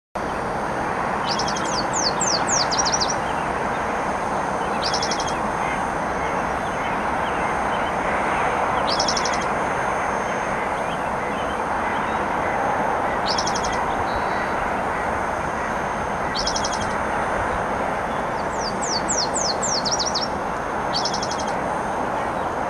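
Spotted towhee singing: a short, high, buzzy trill repeated every three to four seconds, about six times. Twice, once near the start and once near the end, a run of quick falling notes comes just before the trill. A steady rushing noise lies underneath throughout.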